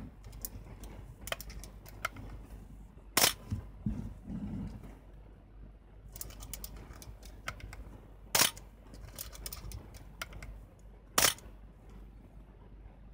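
Canon F-1 35 mm SLR body being worked by hand: the film advance lever wound with light ratcheting clicks, then the shutter and mirror firing with a single sharp clack. This happens three times.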